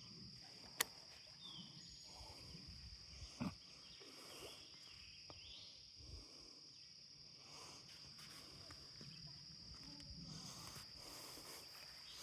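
Faint pond-side ambience with a steady high insect drone. A sharp click comes a little under a second in, and a short knock at about three and a half seconds.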